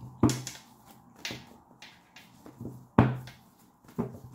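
A deck of tarot cards being shuffled in the hands: a handful of sharp slaps and snaps of the cards, irregularly spaced, the loudest near the start and about three seconds in.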